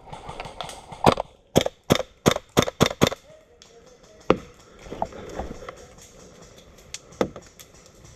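Airsoft guns firing single shots: a quick string of about eight sharp cracks in about two seconds, then two lone shots a few seconds apart.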